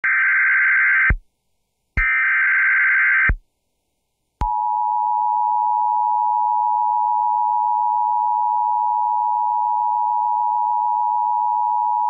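Emergency Alert System broadcast on WXRY 99.3 FM: two harsh digital data bursts of about a second each, one second apart (the SAME header), then after another second the steady two-tone EAS attention signal starts and holds. The sequence signals an incoming severe thunderstorm warning.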